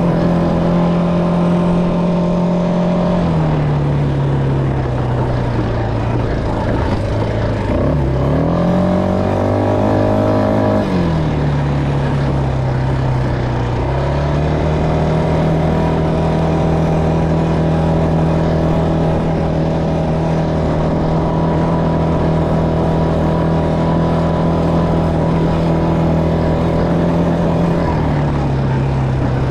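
ATV engine running under way, heard close up from the rider's seat. It eases off a few seconds in, revs up briefly about nine seconds in and drops back, then holds a steady speed until it eases off again near the end.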